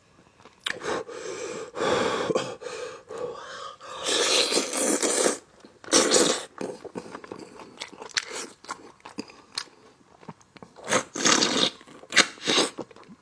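A person chewing and biting into spicy braised lamb leg meat on the bone, in irregular bursts of chewing noise with short sharp clicks.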